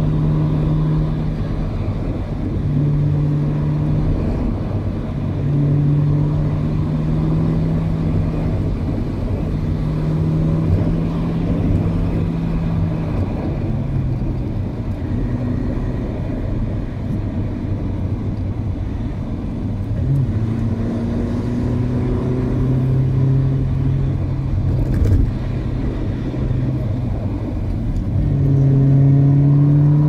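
Car engine and road noise heard from inside the moving car's cabin. The engine note holds steady, then drops and rises again several times as the car speeds up and slows.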